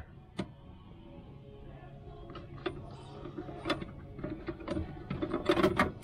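Metal seatbelt-mount hardware being handled and fitted: a sharp click about half a second in, then scattered light clicks and knocks that get busier near the end, over a faint low hum.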